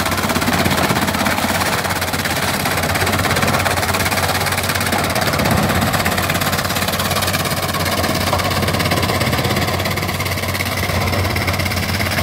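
Eicher tractor's diesel engine running steadily under load, driving a PTO-powered banana stem cutter that shreds banana plants into chips. The result is a dense, steady mechanical clatter over the engine's low hum.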